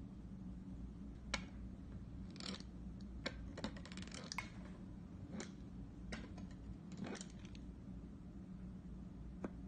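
Light, irregular clicks and taps of plastic Play-Doh tools against a wooden tabletop as a wavy-edged plastic cutter wheel is worked through a disc of Play-Doh, over a steady low hum. The clicks cluster about three to four and a half seconds in, with a last one near the end.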